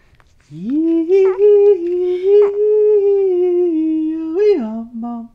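A person humming one long held note, rising at the start and then holding steady, dropping to a lower note near the end.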